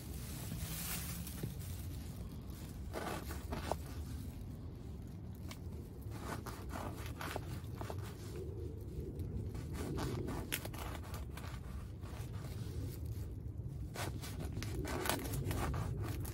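A knife sawing through a crusty loaf of bread on a wooden cutting board, in clusters of short rasping strokes, with plastic bags rustling. A steady low rumble runs underneath.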